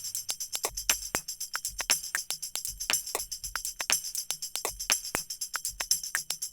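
Background music in a sparse percussion passage: quick, even tambourine-like jingle hits, several a second, over a faint low pulse.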